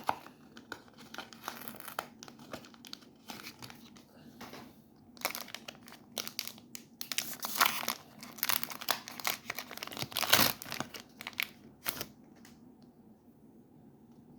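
Foil wrapper of a Pokémon trading-card booster pack crinkling and being torn open, a run of dense crackles that stops about twelve seconds in.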